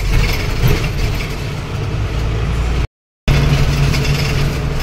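Truck engine running under way, heard from inside the cab as a steady low hum with road and cab noise over it. The sound drops out completely for a moment about three seconds in, then carries on as a steadier hum.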